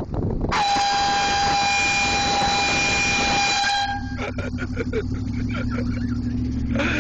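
Air horn giving one long, steady, high-pitched blast of about three seconds that starts and cuts off abruptly, followed by a jumble of short choppy sounds over a steady low hum.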